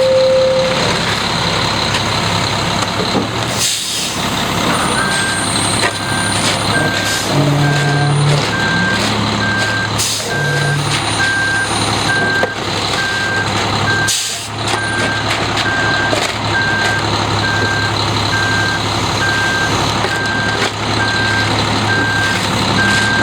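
Concrete mixer truck engine running steadily, with its reversing alarm starting about five seconds in and beeping evenly, about three beeps every two seconds. A few short hisses, like air brake releases, come through over the engine.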